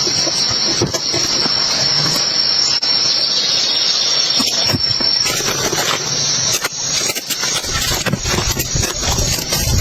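Heavy rain falling steadily in forest, a dense hiss with scattered drop ticks and a constant high-pitched whine over it. A low rumble joins near the end.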